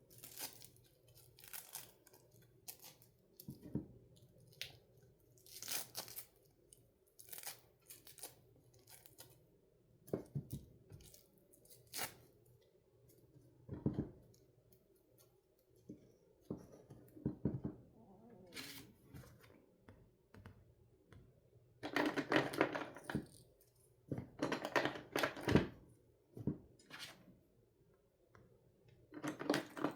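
Hook-and-loop (Velcro) fasteners on wooden toy pizza pieces being pulled apart in short tearing rasps, with a few light knocks of wood. The longest rips come about two thirds of the way through.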